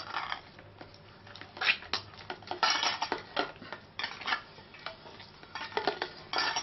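Stainless-steel bowl clattering and bangles clinking in irregular bursts as hands knead oiled dough in the bowl.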